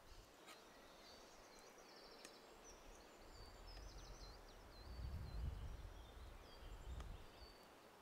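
Faint birdsong: many short, high chirps repeating one after another, with a low rumble swelling up in the middle and a few faint ticks.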